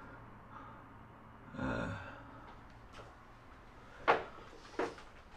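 Quiet background with a soft, breathy rustle about two seconds in, then two sharp knocks near the end, the first one louder.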